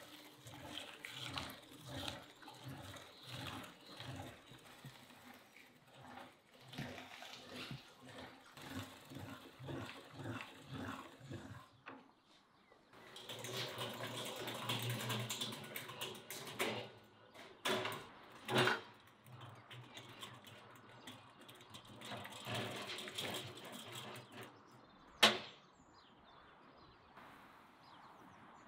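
Hand-cranked metal meat grinder mincing meat and onion, a wet grinding with a pulse at each turn of the crank. After a short pause come scattered metallic knocks, and one sharp clank near the end.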